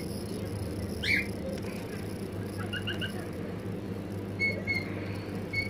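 Short high-pitched chirps, with a louder rising one about a second in and a quick run of them around three seconds in, over a steady low hum.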